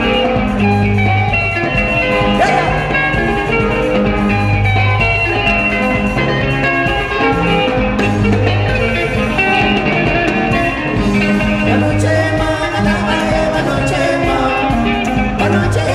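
Live sungura (dendera) band music: interlocking electric guitars over a repeating bass line and a steady drum beat.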